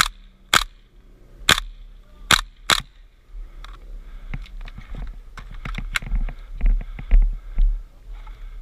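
Airsoft replica firing single shots: four sharp cracks about a second apart in the first three seconds. Then a stretch of small clicks and low bumps close to the microphone.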